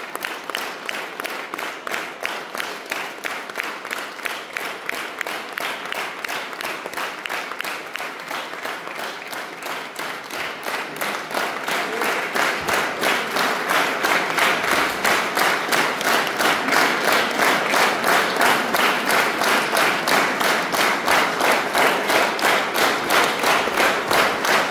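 Audience applauding together in a steady rhythmic clap of about three claps a second, growing louder about halfway through.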